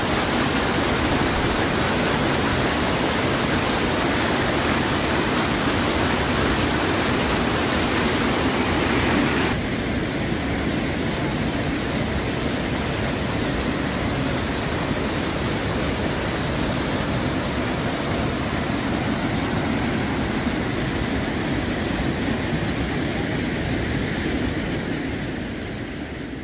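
Rain-swollen floodwater of the Cariús River pouring over a dam spillway and rushing over rocks in a loud, steady rush. About ten seconds in the sound changes abruptly to a slightly softer, duller rush of the flooded river, and it fades out at the very end.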